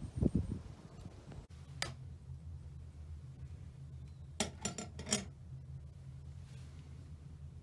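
Aluminium stovetop moka pot being set down on the top of a cast-iron wood stove: a quick cluster of metallic clinks and knocks about four and a half seconds in, over a low steady hum.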